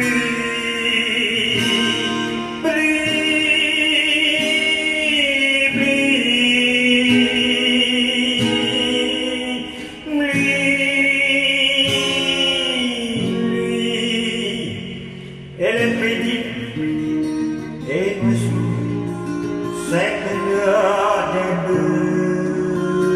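A man singing a slow Vietnamese song in long, wavering held phrases over instrumental accompaniment.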